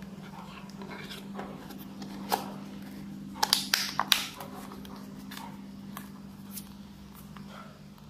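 Small plastic phone parts being handled and pressed into place during reassembly: scattered clicks, with a cluster of sharp clicks about three and a half to four seconds in. A steady low hum runs underneath.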